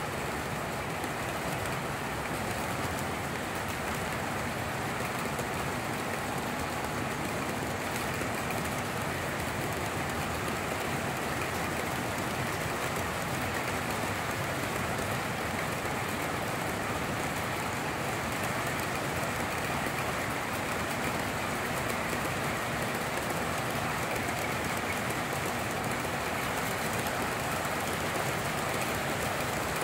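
S gauge model freight train rolling past on the layout track: a steady rolling noise of many cars' wheels running over the rails.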